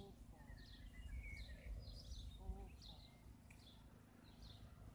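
Faint outdoor ambience: small birds chirping over and over in short, mostly falling notes, over a low rumble.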